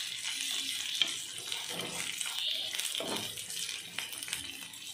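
Green chillies and ginger sizzling in hot mustard oil in a pan, stirred with a wooden spatula that scrapes and taps against the pan, with a sharp tap about a second in.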